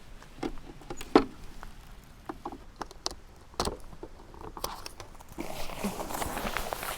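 Camping gear being handled during tarp and tent setup: scattered clicks and knocks, a sharp knock about a second in, then denser rustling from about five seconds in.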